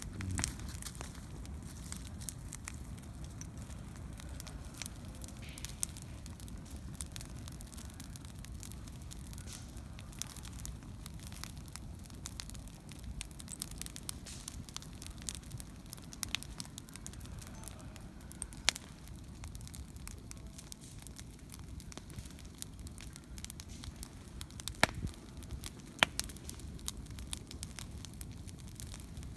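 Wood campfire crackling, with a steady scatter of small sharp pops and a few louder snaps in the second half, over a steady low rumble.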